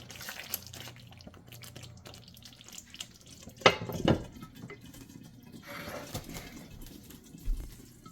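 A spoon knocks twice against the glass-ceramic CorningWare pot of simmering curry gravy a little under halfway through, with softer stirring and pot sounds later, over a faint steady hum.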